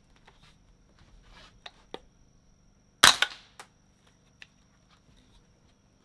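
A single suppressed shot from a Smith & Wesson M&P 15-22 rifle firing subsonic .22 LR through an Advanced Armament Corp Prodigy suppressor: one short, sharp report about three seconds in, followed by a lighter click. The sound meter peaks at 77.3 dB for the shot, against 88 dB for the same subsonic ammunition unsuppressed.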